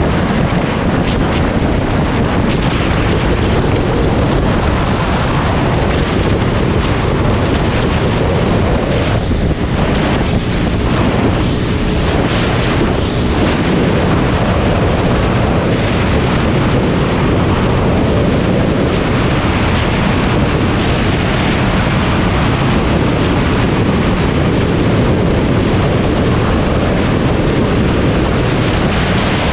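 Steady wind noise buffeting the microphone while riding a KTM 500 EXC dirt bike, with the single-cylinder engine running under it.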